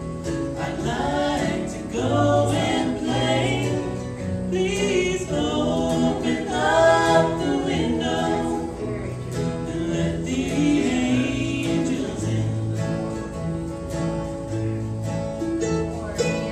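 Live bluegrass band playing a song with harmony singing, backed by acoustic guitars, mandolin, fiddle and banjo.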